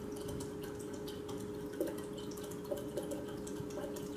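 Ginger ale being poured into the punch, fizzing with fine crackles and a few small drips, over a steady faint hum.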